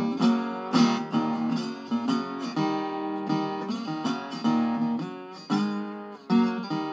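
Metal-bodied National resonator guitar strummed in an instrumental break, a run of rhythmic chord strokes with a brief drop in level shortly before a strong strum near the end.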